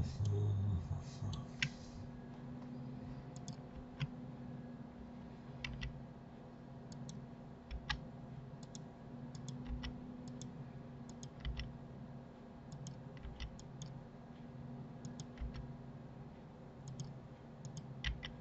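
Computer mouse and keyboard clicks, many short scattered clicks, some in quick pairs, over a low steady hum. A brief low sound comes right at the start.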